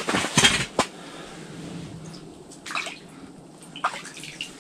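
A hand splashing and sloshing in the slush-filled hole in the ice: a quick cluster of splashes in the first second, then a couple of softer sloshes later on.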